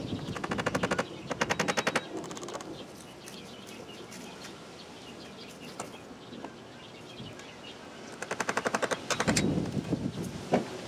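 Hand-held power driver, likely an impact driver, running in short bursts of rapid knocking against the wooden deck rail: three quick bursts in the first two and a half seconds, and another about eight seconds in. Birds chirp in the gaps.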